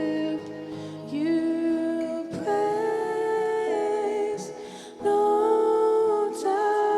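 Live worship band playing with female vocalists singing long, held notes over acoustic guitar and keyboard.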